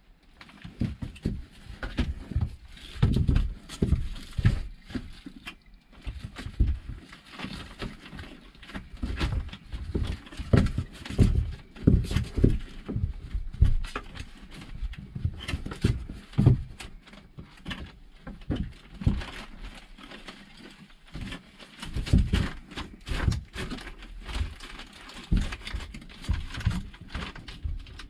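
Irregular soft thumps and knocks, several a second, with brief lulls.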